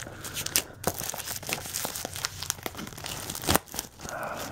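Clear plastic shrink wrap being torn and peeled off a Blu-ray case, crinkling and crackling throughout, with one louder sharp crack about three and a half seconds in.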